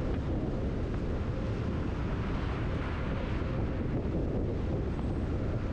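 A car driving at speed: steady engine and road noise with some wind noise, even throughout.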